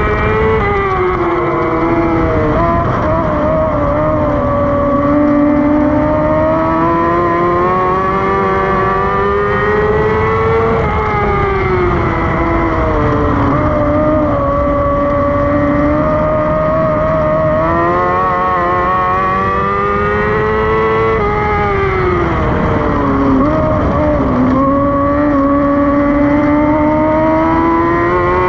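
Dwarf car's motorcycle engine at racing speed, heard from on board. Its pitch climbs down each straight and drops off into each turn, about four laps' worth of cycles roughly six seconds apart, over steady wind and tyre rumble.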